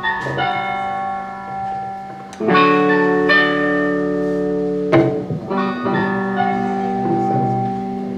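Electric guitar and bass guitar played live through amplifiers, letting slow chords ring out, with a new chord struck about every two and a half seconds.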